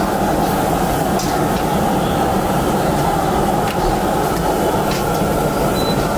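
Steady, loud, rumbling background din of a busy street-food area, with a few faint clicks and taps.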